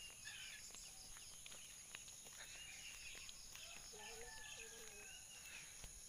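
Faint rural morning ambience: birds giving short whistled calls, more of them in the second half, over a steady high-pitched insect drone.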